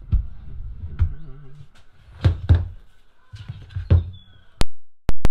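Dull knocks and thumps of an old wooden machete handle being knocked and worked against a workbench to see if it will come apart; the handle holds firm. Near the end, a quick run of sharp clicks.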